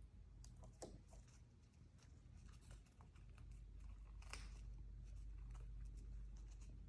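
Near silence: room tone with a low steady hum and a few faint, scattered clicks and scratches.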